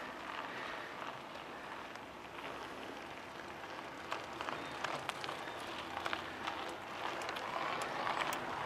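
Mountain bikes being pedalled up a steep paved climb close by: a steady hiss of outdoor noise with scattered short clicks, more of them in the second half.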